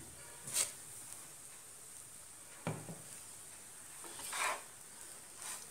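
A spoon stirring and scraping poha (flattened rice) in a nonstick frying pan: a few soft swishes, with one sharp knock against the pan a little under three seconds in.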